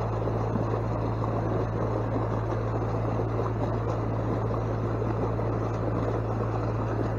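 A steady low motor-like hum with a rushing noise over it, unchanging throughout.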